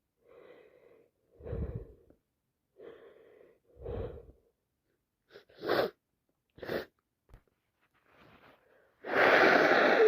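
A person with a wet head cold sneezing. Catching, wheezy in-breaths build up, two short sharp sneezes come in the middle, and about nine seconds in there is a loud, full sneeze, the loudest of them.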